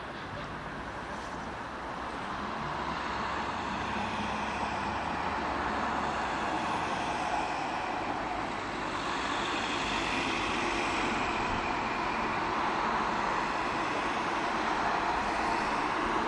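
Steady wash of town road traffic noise, growing slightly louder over the first few seconds and then holding even.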